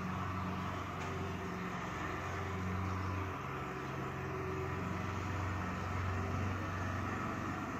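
Steady low hum over a background hiss, with no speech.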